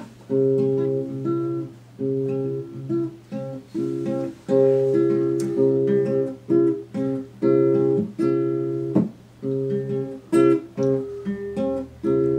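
Acoustic guitar strummed in chords, each chord ringing for about a second before the next strum, with short breaks between phrases.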